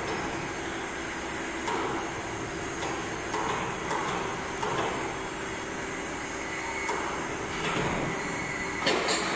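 Electric milling cutter of a hydraulic butt fusion machine being handled and lowered into the machine frame between the pipe clamps: metal scraping and knocking over a steady machine hum, with a louder clatter near the end.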